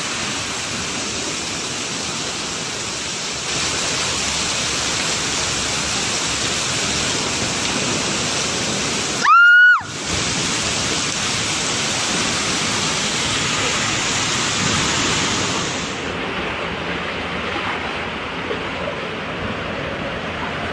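Strong coastal wind and pounding surf: a steady, rushing noise. About nine seconds in, a short, loud rising tone like a whistle or beep cuts across it.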